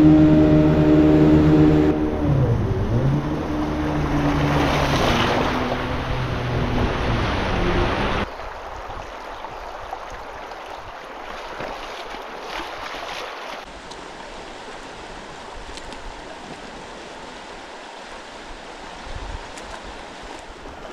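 A loud steady low hum with several overtones, dipping briefly in pitch, cuts off abruptly about eight seconds in. It gives way to the steady rushing of flowing river water with wind on the microphone.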